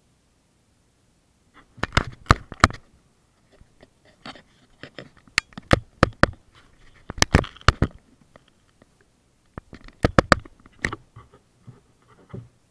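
Sharp knocks and clatter of the angler handling gear and bumping the pole-mounted camera on a bass boat while landing a bass, coming in several short bursts with quiet gaps between.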